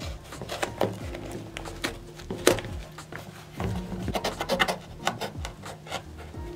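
Knife blade cutting through a sneaker's upper and sole, a string of irregular rasping scrapes and sharp clicks. The cut is surprisingly difficult, which the cutter puts down to a possibly dull blade.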